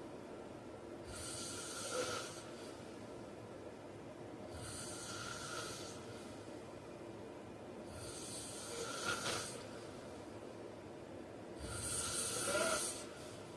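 A man snoring in his sleep: four snores at an even pace, about one every three and a half seconds.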